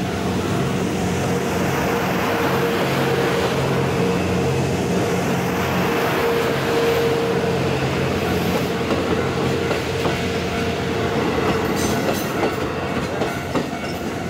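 Kiha 87 series sleeper diesel railcar rolling slowly past: a steady engine hum with a held tone over wheel and rail rumble. A few sharp wheel clicks come about twelve seconds in.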